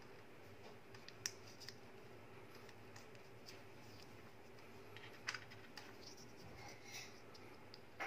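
Faint clicks and rustles of fingers handling a wire lead, a crimped spade connector and a plastic insulating sleeve, with two sharper clicks, about a second in and about five seconds in, over a faint steady hum.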